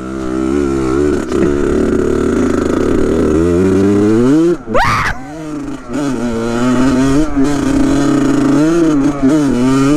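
Kawasaki KX100 two-stroke single-cylinder dirt bike engine running under way, its pitch climbing slowly and wavering with the throttle, with one quick sharp rev about halfway through.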